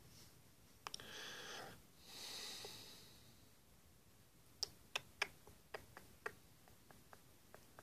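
Faint sounds of a person close to the microphone: a sniff and a breath out through the nose about a second in, then a run of light, irregular clicks and taps from handling the smartphone, the first few the loudest.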